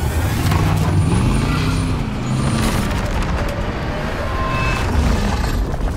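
Chevrolet Silverado pickup's engine running hard while driving on desert dirt: its pitch rises and falls back about a second in, over a steady low rumble.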